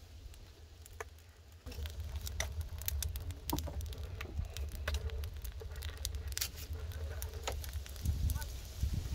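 Wood fire burning inside a clay tandoor: irregular sharp crackles and pops over a steady low rumble, louder from about a second and a half in.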